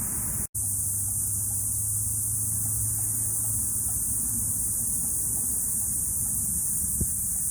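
Cicadas buzzing steadily in a continuous high-pitched drone. The sound cuts out completely for a split second about half a second in, and there is a single short click near the end.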